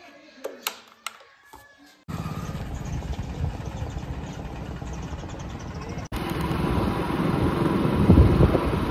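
A few light clicks of a key turning in a Hero motorcycle's ignition switch. From about two seconds in, the motorcycle's engine runs while riding, with wind rushing on the microphone. The sound gets louder from about six seconds in, at road speed.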